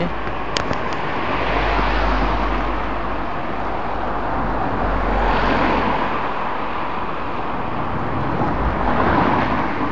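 Road traffic: cars driving past on the street, the noise swelling and fading a few times as they go by.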